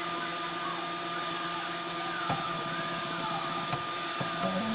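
Home-built 3D printer running a print: its motors whine in shifting pitches over a steady hum and hiss, with a few short ticks. Near the end a whine steps up in pitch.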